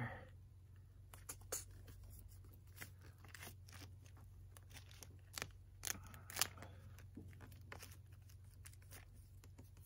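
Faint crinkling and rustling of a self-adhered flashing membrane patch and its backing being handled and pressed into place by hand, with scattered small clicks and taps.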